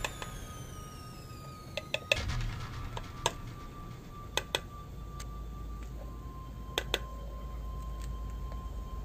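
Plastic spoons tapping against the rims of plastic measuring cups as colorant powder is knocked into them: a handful of sharp taps, some in quick pairs, over faint background music.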